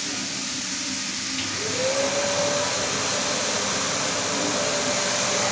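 Carpet-cleaning machines running on foamed carpet: a rotary floor scrubber and a wet vacuum give a steady rushing noise. About one and a half seconds in, a motor whine rises in pitch and then holds steady as the sound gets a little louder.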